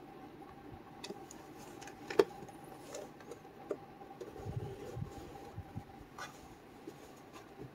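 Model kit box and packaging being handled: scattered light clicks and taps, one sharper click about two seconds in and a few soft thumps around the middle, over a faint steady hum.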